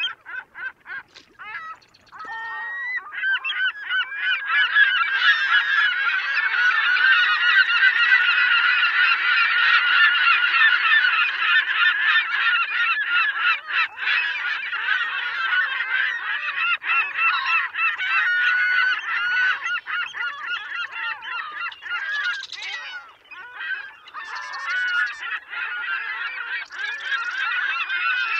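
A large flock of birds calling continuously, many short honking calls overlapping into a dense clamour. It builds up over the first few seconds and stays loud.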